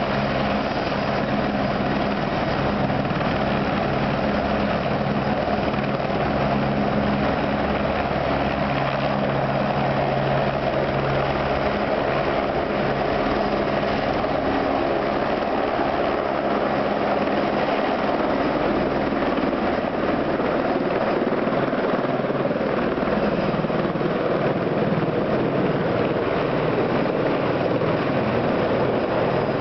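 Eurocopter AS355 F2 Twin Squirrel helicopter, its twin Allison 250-C20F turbines and main rotor running at takeoff power as it lifts off, hovers and climbs away. The loud turbine and rotor noise is steady throughout, with a low drone that weakens after about twenty seconds as it climbs away.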